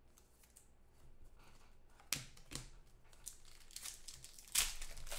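Clear plastic crinkling and rustling as trading cards are handled, in a run of short rustles, the loudest about two seconds in and near the end.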